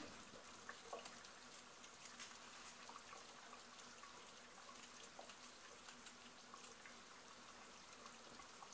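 Near silence: faint room tone with a steady low hum and scattered, very faint small ticks.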